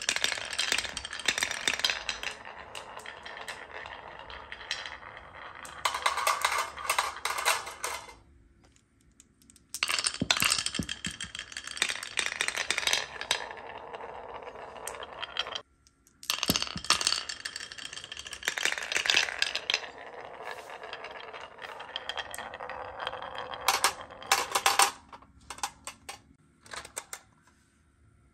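Glass marbles rolling down wooden wave-groove slopes: a continuous clicking rattle as they swing through the curves and knock against the wood and each other. It comes in three runs with short pauses between, and dies away near the end.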